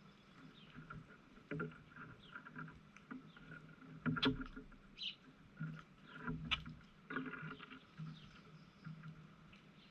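Yard birds chirping and calling in short, scattered notes, with two louder sharp calls near the middle.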